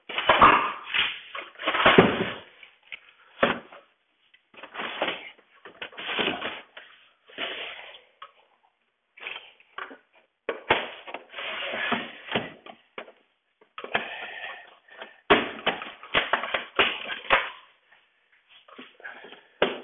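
A knife cutting and scraping along the wooden window trim in irregular strokes, with occasional knocks against the frame.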